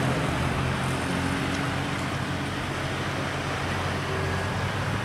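Steady low engine hum from a tram creeping slowly closer on its track, over the even noise of road traffic.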